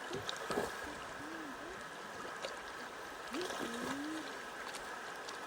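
River water running and lapping around a bamboo raft, with a few sharp ticks and splashes. Two short pitched sounds rise and fall over it, one about a second and a half in and one about three and a half seconds in.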